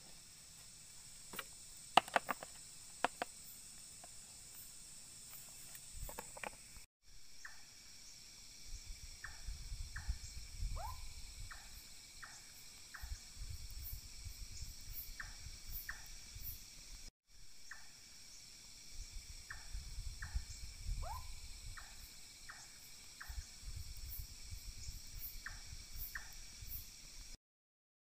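Night insects trilling steadily in several high pitches, with short chirps repeating every second or so. A few sharp clicks come in the first three seconds, and a low rumble comes and goes through the second half.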